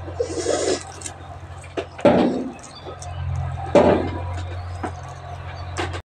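Steady low hum with a few short rustling and handling noises: a brief rustle near the start, then two louder ones about two and four seconds in, as of cloth being handled close to the microphone.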